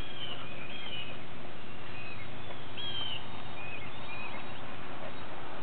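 Scattered short, high chirps, like small birds calling, over a steady outdoor background hiss.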